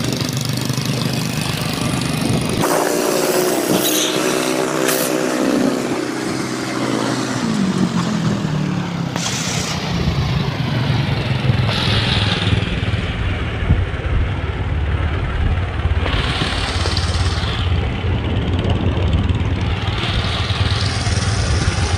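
Motorcycle riding on the open road: engine running under wind noise on the microphone. A few seconds in, an engine note glides down in pitch, and from about ten seconds on a heavy low wind rumble takes over.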